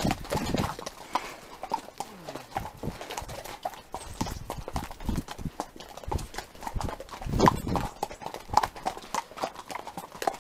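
Horse hooves clip-clopping: a steady, continuous run of hoofbeats from a ridden horse on the move.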